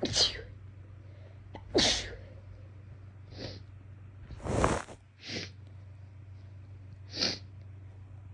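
A woman having a sneezing fit from an itchy nose: six sharp sneeze bursts over about seven seconds, the loudest at the start, about two seconds in and near the middle, with weaker ones between and near the end.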